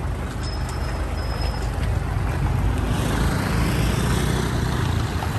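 A motor vehicle's engine running close by, the sound swelling as it passes about three to four seconds in.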